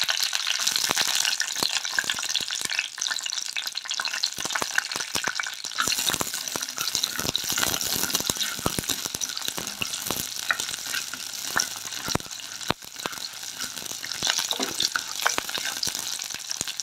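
Shallots and fenugreek seeds sizzling in hot oil in a clay pot, with a steady hiss and many small crackles and pops, while a wooden spoon stirs them.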